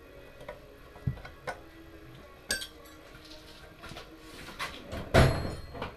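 Metal parts and tools knocking and clinking as they are handled on a workbench: a few scattered knocks, then a louder clatter about five seconds in.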